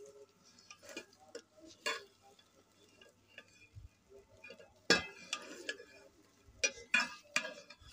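Long metal ladle stirring and scraping food in a metal cooking pot, with scattered sharp clanks of the ladle against the pot. The loudest clank comes about five seconds in, and several more follow near the end.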